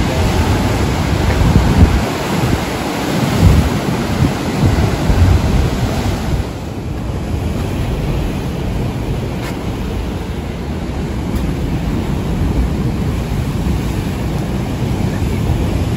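Wind buffeting the microphone in gusts over the steady wash of sea surf. The buffeting eases about six seconds in, leaving a steadier rush of wind and waves.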